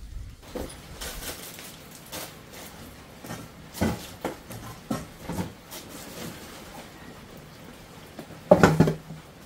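Scattered knocks and clatter of things being handled, then, near the end, a louder thump with a short clatter as a loaded canvas bag is set down on a wooden table.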